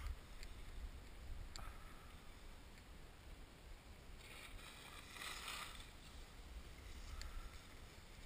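Skis sliding down a groomed snow piste: a faint low rumble of the run, a scraping swish of the ski edges on the snow about four to six seconds in, and a few light clicks.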